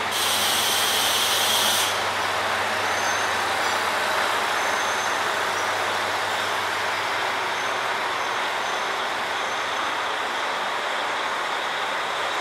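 JR Hokkaido KiHa 40 and KiHa 150 diesel railcars idling steadily at a platform. A burst of compressed-air hiss from the train's air system lasts about two seconds at the start.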